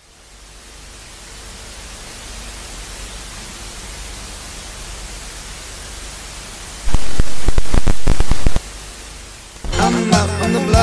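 A hiss of static swells in after the music cuts out and holds steady. About seven seconds in comes a much louder burst of crackling static, lasting under two seconds. The song comes back in near the end.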